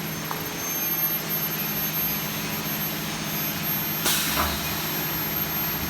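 Steady machine hum and hiss of a running induction forging furnace, with a single sharp knock about four seconds in.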